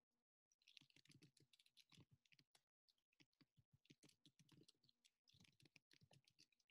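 Faint computer keyboard typing: quick, irregular clicks in runs with short pauses.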